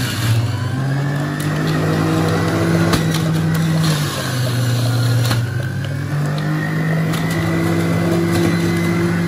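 Electric centrifugal juicer's motor running steadily as it juices apples. Its hum dips in pitch for about a second around four seconds in, then picks back up.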